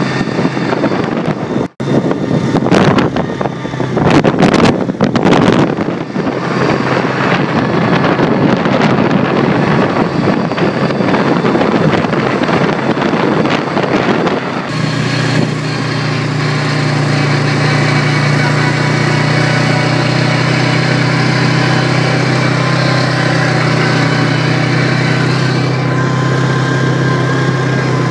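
ATV engine running while driving on a dirt road. The first half is rough and noisy, with a brief dropout just under two seconds in; from about halfway the engine settles into a steady drone.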